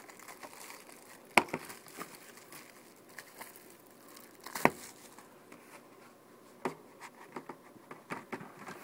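Plastic shrink wrap being peeled and torn off a DVD box set: scattered crinkling with a few sharp snaps, the loudest about a second and a half in and again about halfway through.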